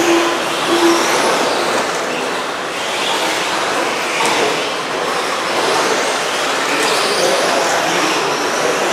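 Several RC stadium trucks racing on a dirt track: a steady hiss of tyres on dirt with high-pitched motor whines that rise and fall as the trucks accelerate and brake.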